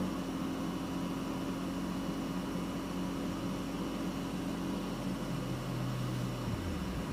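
Toyota Tacoma V6 engine idling steadily, a constant hum with a light hiss.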